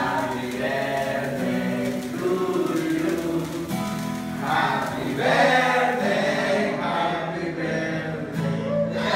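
A group of people singing a birthday song together, accompanied by a strummed acoustic guitar.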